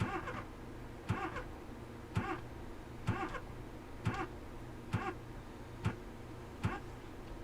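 Old car clicking about once a second, eight sharp clicks in all, without cranking over or starting.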